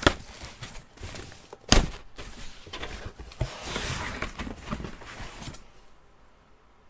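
Cardboard shipping box being unpacked by hand: rustling and small knocks, with one loud thump a little under two seconds in, dying away near the end.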